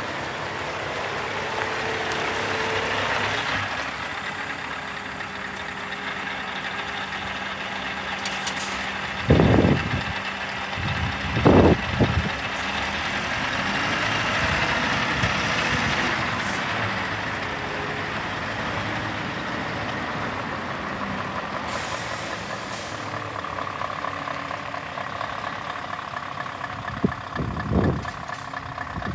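Scania R580's V8 diesel engine running steadily as the truck manoeuvres at low speed. Two brief low thumps come in quick succession about a third of the way through, and a short air hiss, typical of the air brakes, about three-quarters of the way through.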